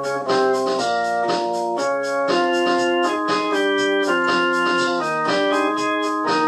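Organ music: sustained keyboard notes and chords, changing every half second or so in a running melody.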